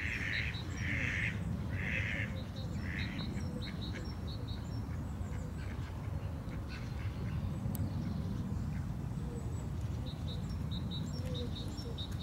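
A duck quacks four times, about once a second, in the first three seconds; after that, small birds give short high chirps over a steady low rumble.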